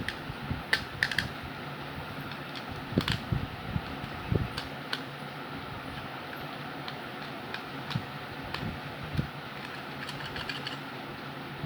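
Scattered small clicks and knocks of hand tools working a tight nut loose on a three-pin plug, at irregular intervals over a steady background hum.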